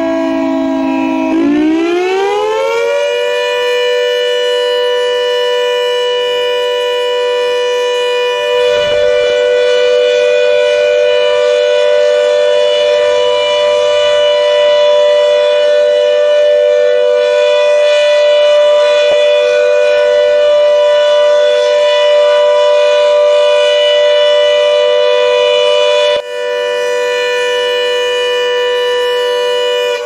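Air-raid siren sounding several tones at once, gliding up in pitch about a second in and then holding a loud, steady tone, with a brief break late on before it sounds again.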